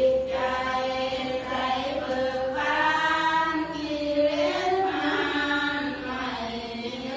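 Voices chanting together in long, held, slowly gliding notes.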